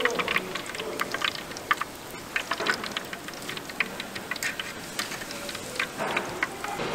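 Hot frying oil sizzling in a street-stall deep fryer, with scattered sharp clicks and crunches of metal tongs handling and stacking crispy battered fried pieces on the draining rack.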